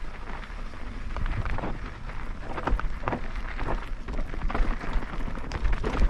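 Mountain bike rolling over a rough dirt and gravel trail: tyres crunching on stones with irregular rattles and knocks, over a steady low rumble of wind on the microphone.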